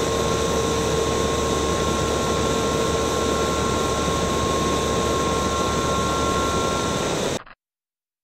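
Sound-effect roar of a spacecraft: a steady rushing noise with a few steady hum tones through it, cutting off abruptly about seven seconds in.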